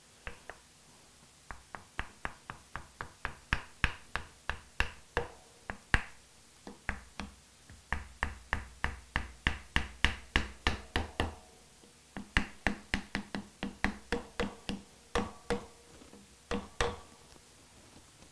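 Light taps of a plastic-faced hammer driving the rear crankshaft oil seal into the AeroVee engine's crankcase, in quick runs of about three to four taps a second with short pauses between runs.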